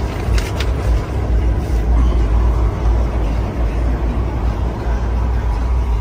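Diesel engine of a 2019 Peterbilt 579 idling, a low steady rumble heard inside the cab, with a few light clicks about half a second in.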